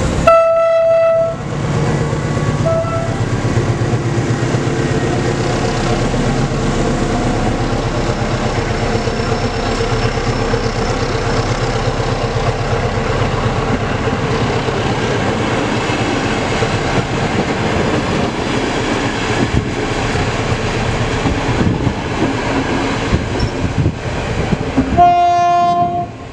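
SM42 diesel locomotive departing with double-deck coaches: a horn blast of about a second and a short toot at the start. Then the eight-cylinder diesel engine works steadily under load while the coaches roll past with wheels clattering over the rail joints, and a second loud horn blast comes near the end.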